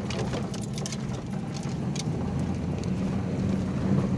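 Car engine running steadily at low revs, heard from inside the cabin, with tyres crunching and ticking over a rough gravel track.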